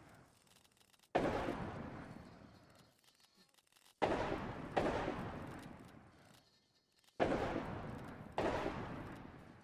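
Distant musket shots, five in all, each a sudden crack with a long echoing tail that fades over a second or two. Two pairs come less than a second apart, about four and seven seconds in.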